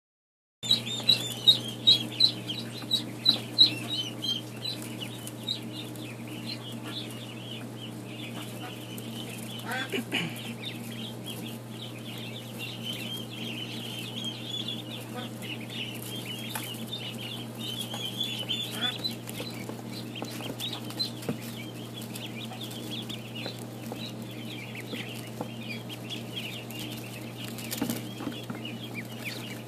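A brood of newly hatched Ancona ducklings peeping nonstop, many high-pitched peeps overlapping. In the first few seconds a run of loud single peeps comes about twice a second. A steady low hum runs underneath.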